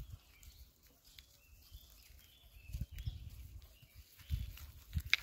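Quiet outdoor ambience with a few dull thuds of footsteps on a dirt path, loudest about three and four and a half seconds in, and faint short bird chirps.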